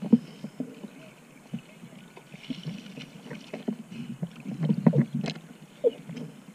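Sea water sloshing and slapping against an action camera's housing at the surface, in irregular splashes and knocks that are busiest about four to five seconds in.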